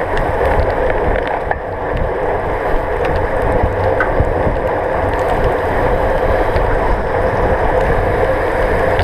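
Steady wind rushing over a bike-mounted GoPro's microphone, mixed with tyres hissing on wet pavement, as a racing bicycle rides at speed in a pack.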